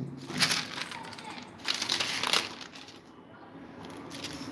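Crinkling rustle of a stamp stockbook's translucent interleaving sheets as the pages are handled and turned, in a few short rustles that die down about three seconds in.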